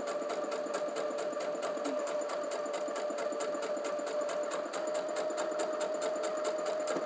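Brother electric sewing machine running steadily, sewing a straight seam through cotton fabric: a steady motor whine with a fast, even run of needle clicks.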